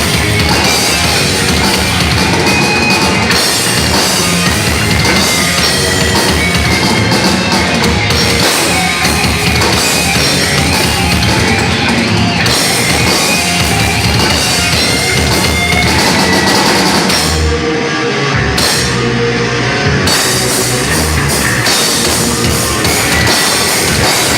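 Thrash metal band playing live: distorted electric guitars, bass and a drum kit in an instrumental passage. The cymbals and high end drop out for about two seconds near the end, then the full band comes back in.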